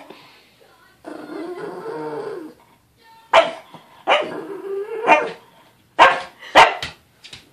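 A pug growling about a second in, then barking: five short, sharp barks over the last four seconds, with a growl running into one of them.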